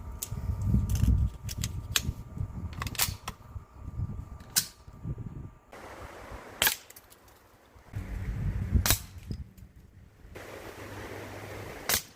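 A series of sharp, unevenly spaced shots from a Beeman Chief II PCP air rifle, several close together early on and then single shots every few seconds, with a low rumbling noise between some of them.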